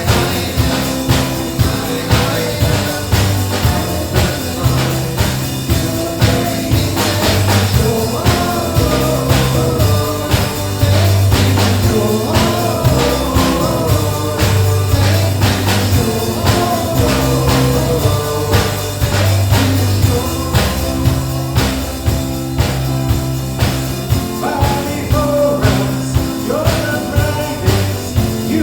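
Worship song with singing over a band: a steady drum beat and sustained bass notes.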